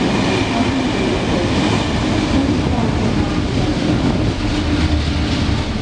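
Train running past on the track beside the platform: a steady loud rumble and drone with wheel clatter.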